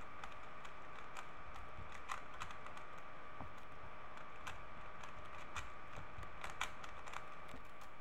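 3x3 Rubik's cube being turned quickly by hand: a fast, irregular run of plastic clicks as the layers snap round, over a steady background whine.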